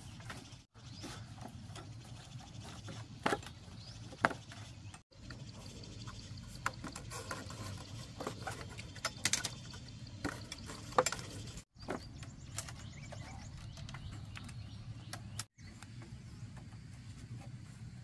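Split bamboo strips clicking, tapping and rustling as they are threaded by hand into a conical bamboo fish trap: irregular sharp clicks, a few much louder than the rest, over a low steady hum.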